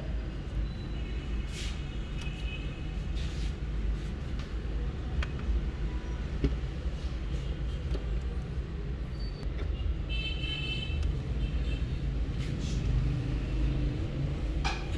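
Steady low rumble of motor vehicles. Brief high-pitched tones come twice, about a second and a half in and again about ten seconds in, with a few scattered clicks.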